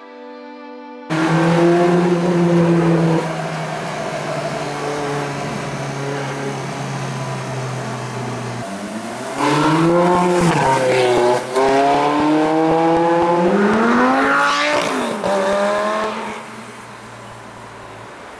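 Supercar engines, a Ferrari F430 Spider's and a Lamborghini Gallardo's, pulling away from a stop. The engine note is steady at first, then revs hard twice, the pitch climbing and falling each time as the cars accelerate past. The engine sound dies away near the end, leaving road noise.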